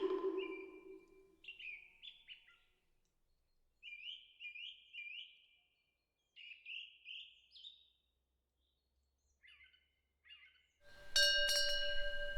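A small songbird chirping in short clusters of three or four quick notes with pauses between them. A ringing metal tone fades out in the first second, and about eleven seconds in a temple wind bell is struck and rings on.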